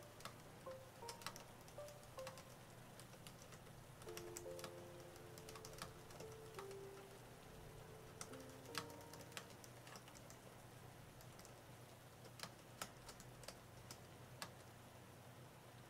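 Typing on an AlphaSmart portable word processor's keyboard: irregular soft key clicks, a few louder keystrokes standing out. Faint background music plays underneath.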